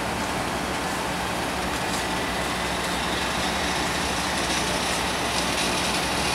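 Airbus A320 jet engine noise: a steady hiss over a low hum, growing a little louder and brighter near the end.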